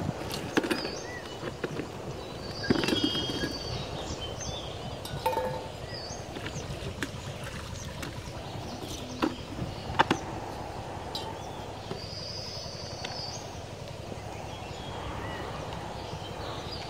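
Outdoor background noise with a bird chirping briefly a couple of times, and a few sharp knocks and clicks as a plastic basin and other things are handled at the water's edge, the loudest about ten seconds in.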